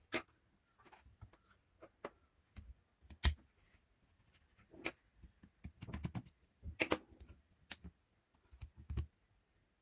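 Light, irregular clicks and taps of a small screwdriver working screws out of a Samsung Galaxy Tab A tablet, with a few sharper taps as tools and screws are handled.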